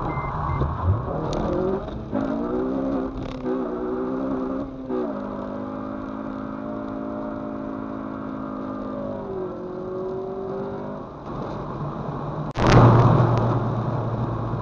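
2006 Honda Civic Si's engine accelerating through the gears, heard from inside the cabin: its pitch climbs and drops back twice at the upshifts, then holds fairly steady while cruising and shifts pitch once more. Near the end a sudden loud rush of noise cuts in and carries on.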